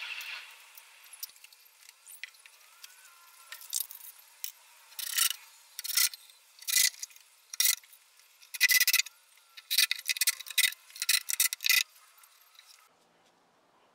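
Tape measure handled against a wooden frame: a run of about a dozen short, scratchy scrapes and rubs in quick, irregular succession, starting a few seconds in and stopping shortly before the end.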